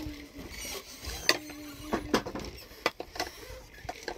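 Aluminium cooking pot and its lid clinking and knocking against each other and the metal gas stove as the lid is fitted and the pot shifted: a scattered run of sharp clicks and knocks, the loudest about a second in.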